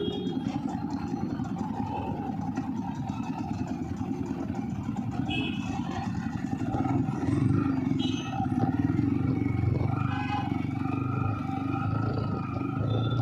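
Street traffic: vehicle engines running continuously, with a low rumble that grows louder about seven seconds in.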